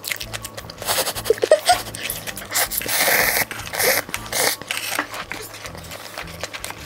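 Eating sounds: irregular chewing and bites with scattered small clicks.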